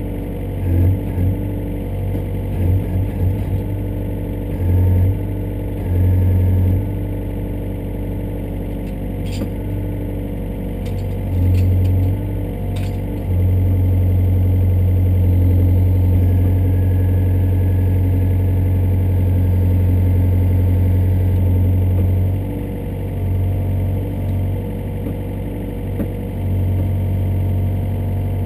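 Yanmar ViO57 mini excavator's diesel engine running, heard from inside the cab. Its note swells repeatedly as the hydraulics are worked, in short bursts and once for a long stretch of about nine seconds in the middle. A few faint clanks come through.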